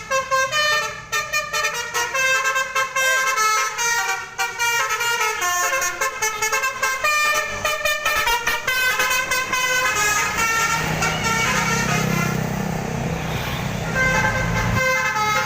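Basuri telolet bus horn, a multi-trumpet musical air horn, playing a fast tune of quickly changing notes. A low steady drone joins under it from about two thirds of the way in and cuts off near the end.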